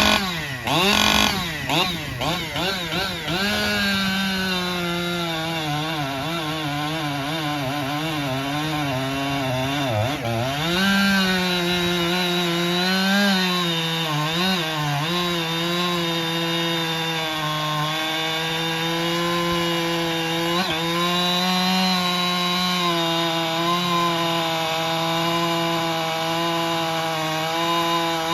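Husqvarna 585 XP two-stroke chainsaw with a 28-inch bar, blipped up and down for a few seconds, then held at full throttle cutting through hard oak. The engine note dips briefly as the chain bites and the chain chatters a little in the hard wood.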